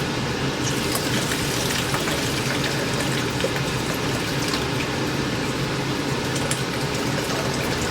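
Water gushing steadily out of a water heater's opened drain valve into a strainer and container, as the tank is drained to flush out hard-water deposits and sediment.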